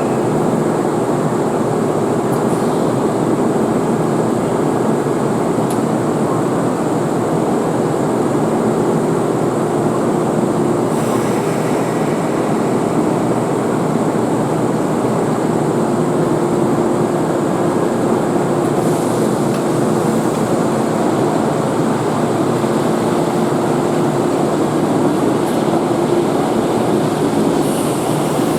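Steady train rumble with a constant mid-pitched hum on an underground railway platform, holding level without rising or falling.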